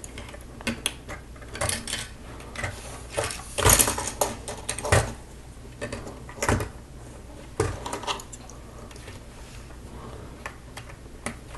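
Plastic Lego pieces clicking and clattering as they are snapped together and handled on a hard tabletop: irregular sharp clicks and knocks, louder ones clustered around four to five seconds in.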